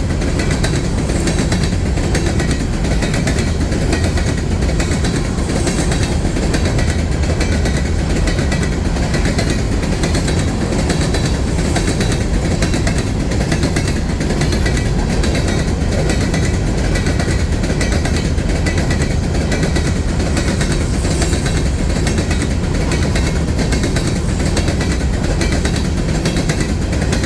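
Empty phosphate hopper cars of a freight train rolling past, a steady loud rattle and clatter of cars and wheels that does not let up.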